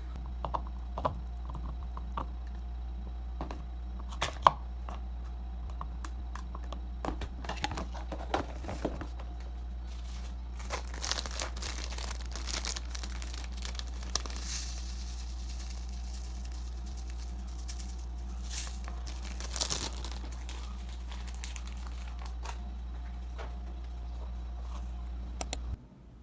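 Crinkling, rustling handling noises with scattered sharp clicks, over a steady low hum; the sounds stop abruptly near the end.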